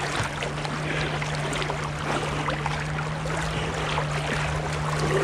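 Swimmers' strokes splashing and water lapping close by, many small splashes, with a steady low hum underneath.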